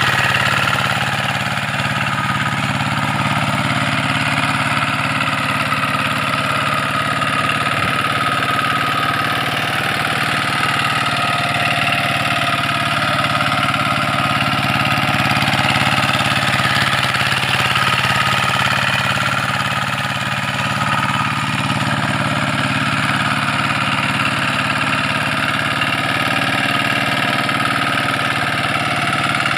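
Single-cylinder diesel engine of a two-wheel hand tractor running steadily under load as it pulls cage wheels and a harrow through a flooded rice paddy.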